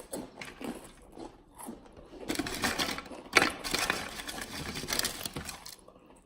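Crunching and crackling of spicy snack chips (Takis and hot fries) being eaten and handled: scattered crunches at first, then a dense crackle lasting about three and a half seconds from about two seconds in.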